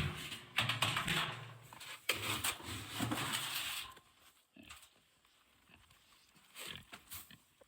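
Pigs grunting at feeding time, loudest through the first four seconds, then quieter with a few short sounds near the end.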